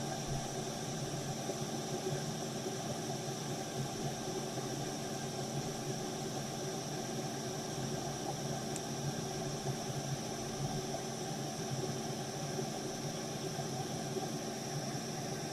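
Steady fan whir and air hiss from workbench equipment, with a low steady hum, unchanging throughout.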